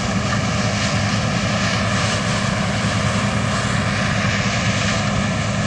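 New Holland combine harvester cutting grain: a steady drone of its diesel engine and threshing machinery, with no change in pitch.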